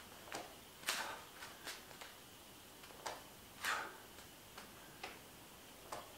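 Faint, irregular clicks and taps, about ten in six seconds, a few with a short hiss after them, from a person doing slow push-ups on a foam floor mat.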